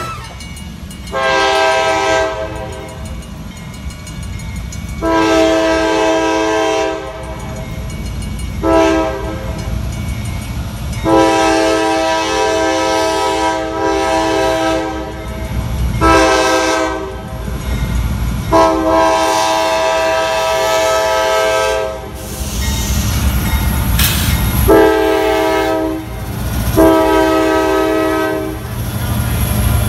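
Norfolk Southern freight locomotive's multi-chime air horn sounding a series of blasts, the first four in the long, long, short, long pattern of a grade-crossing signal, over the low rumble and wheel clatter of the moving train.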